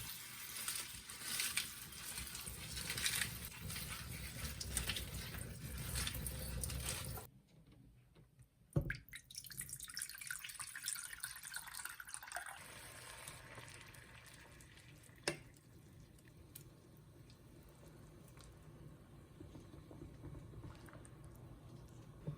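Water running from a tap into a sink for about seven seconds, then shut off abruptly. A sharp click follows, then fainter sounds.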